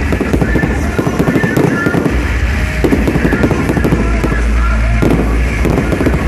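Fireworks going off at close range: a dense, rapid crackling and popping of bursting shells and sparks that keeps up without a break.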